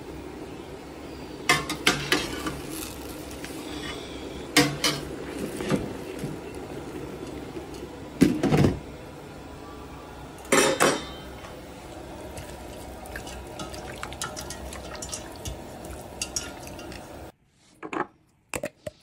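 Metal clanks and clatters of a stainless steel stockpot and its lid being handled on the stove, a few separate bursts over a steady background hiss. Near the end the hiss cuts off and a few light clicks follow.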